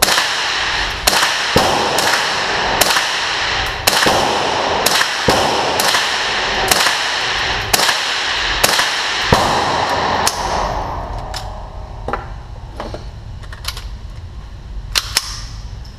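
Ruger 10/22 semi-automatic .22 LR rifle firing about fifteen shots at an uneven pace, each crack ringing in the enclosed range. After about ten seconds the shooting stops, leaving quieter clicks of the rifle and magazine being handled and a couple of sharper cracks near the end.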